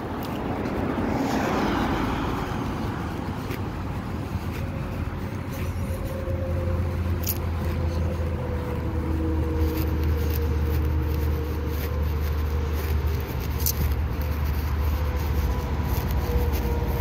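Road traffic passing close by: a car goes past in the first few seconds, then a steady low engine drone from a vehicle carries on, with a few sharp clicks over it.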